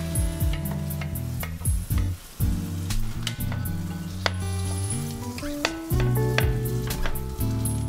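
A Monte Cristo sandwich frying in butter in a pan, sizzling steadily, with sharp clicks of tongs and spatula against the pan as it is turned. Background music plays underneath.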